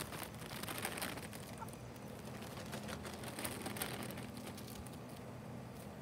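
Hens pecking at scattered spinach leaves on dry dirt: irregular soft clicks and rustles that thin out after about four seconds.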